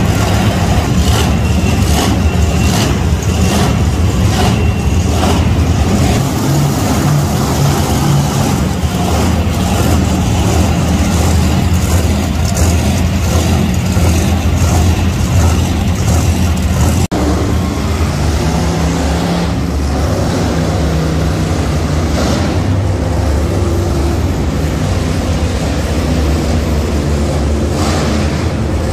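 Monster truck engines running loud, with the pitch rising and falling as they rev.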